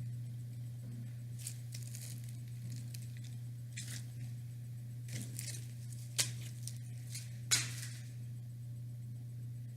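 Homemade slime being squished and stretched by hand: a run of soft squelches and crackles, two of them sharper just past the middle, over a steady low hum.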